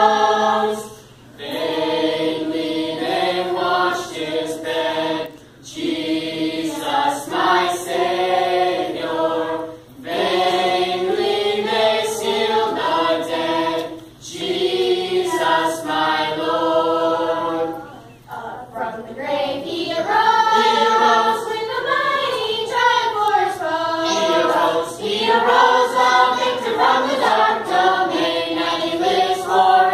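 Youth choir of girls and boys singing together in phrases, with brief pauses for breath every few seconds.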